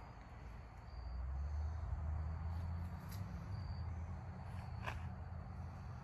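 Outdoor ambience: a low rumble of wind buffeting the microphone, louder from about a second in, with faint short high insect chirps about once a second and a few soft clicks.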